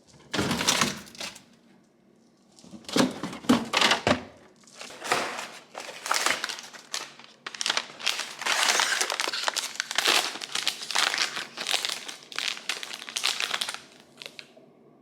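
Plastic snack wrapper being handled and crinkled open, first in two short bursts and then in a long stretch of continuous crinkling.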